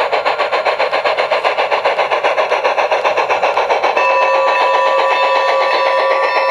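Sound unit of a G-scale Bachmann three-cylinder Shay model locomotive playing fast, even steam chuffing through its speaker. About four seconds in, a track magnet under the locomotive triggers its bell sound, which keeps ringing steadily over the chuffing.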